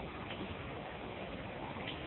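Steady hiss of rain falling, with a faint tick near the end.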